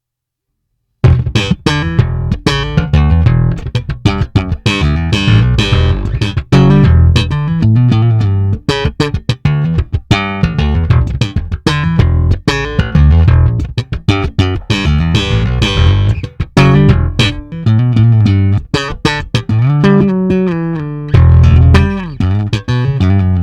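Fender Japan E-serial Precision Bass played as a demo: a continuous run of plucked bass notes and riffs starting about a second in, with a few sliding notes near the end.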